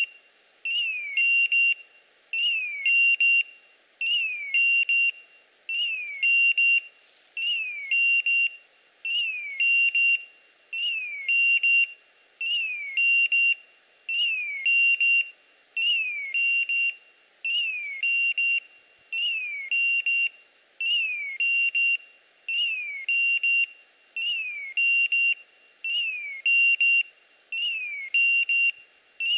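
Dog beeper collar in point mode, signalling that the English setter is standing motionless on point. Each cycle is a falling chirp followed by a steady high beep, and it repeats without break a little less than every two seconds.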